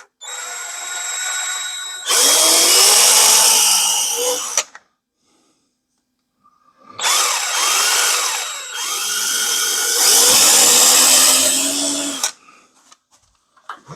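Power drill running in two long bursts of about four and five seconds, its motor pitch wavering as it works under load, with a pause between them.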